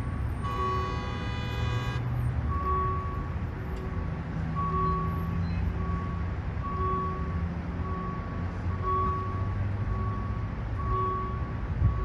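Passenger train running with a steady low rumble. A horn sounds for about a second and a half near the start, and a two-tone electronic beep alternates high and low about once a second throughout.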